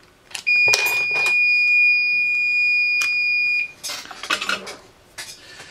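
A single steady, high-pitched electronic beep lasting about three seconds, with a few sharp clicks around it.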